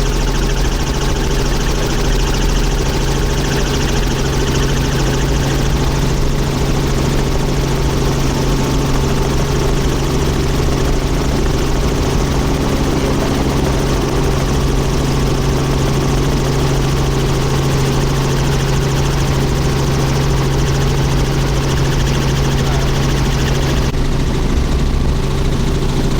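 Helicopter running steadily: a constant loud drone of rotor and engine with a steady low hum.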